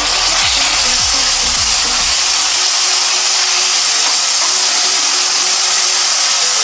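Hot caramelised sugar syrup sizzling hard in the pan with tamarind pulp just added: a loud, steady hiss.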